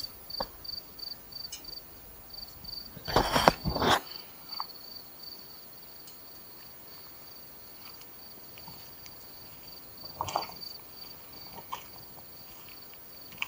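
A cricket chirping steadily, a high pulsed note about four times a second. There is a loud burst of noise about three seconds in and a few clicks and knocks later on.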